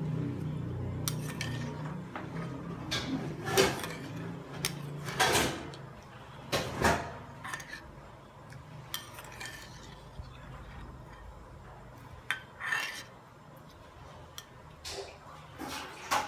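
Kitchen utensils clinking and knocking against dishes and pots in scattered strikes, the loudest between about three and seven seconds in.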